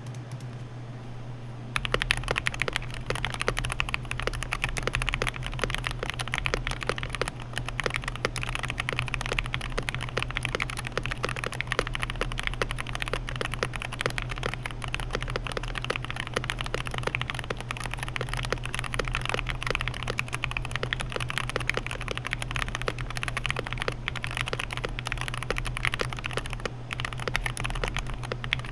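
Fast, continuous typing on a Wooting 60HE keyboard with lubed Gateron Lekker linear switches and JTK keycaps, starting about two seconds in. A steady low hum runs underneath.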